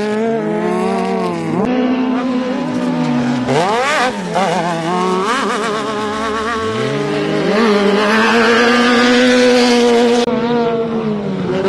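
Off-road race buggy engines revving hard, several at once, their pitch climbing and dropping again and again as they accelerate and back off. A rushing noise swells in about eight seconds in and cuts off about two seconds later.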